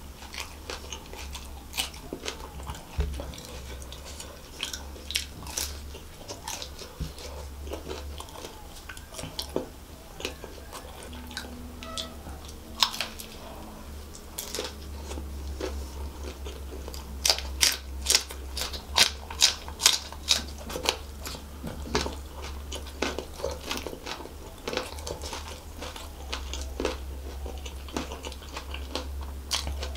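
Close-miked chewing and crunching of a deep-fried samosa's crisp pastry shell, in many short crackles, with a run of louder crunches a little past the middle. A steady low hum runs underneath.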